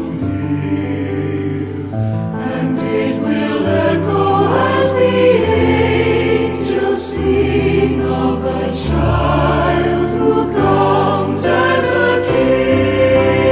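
Choir singing a slow sacred Christmas song over sustained accompaniment, the chords changing every couple of seconds.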